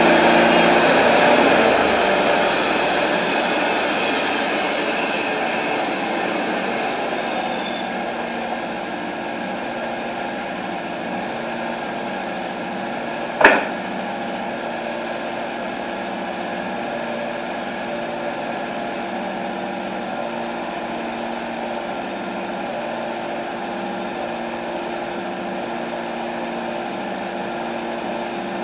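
TimberKing 1220 bandsaw mill's engine running, its noise easing over the first several seconds and then settling to a steady idle. About halfway through, a single sharp clack as a sawn board is set down on the stack.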